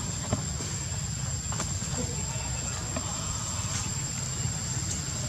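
Insect in the forest canopy trilling on one steady high-pitched note, with a low rumble underneath and a few faint clicks.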